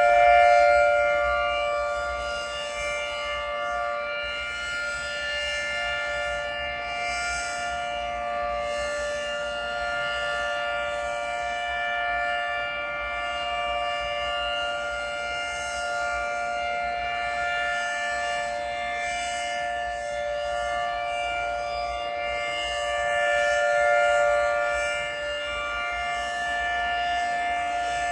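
Federal 2T22 dual-tone outdoor warning siren sounding a steady alert on its weekly test. Its two-note chord holds a constant pitch and swells louder twice, at the start and again near the end, as the rotating head turns toward the listener.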